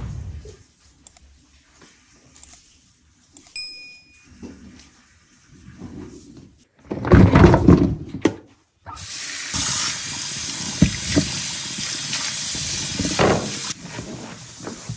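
Water running for about five seconds, an even rushing hiss that starts and stops abruptly, preceded by a loud burst of handling noise.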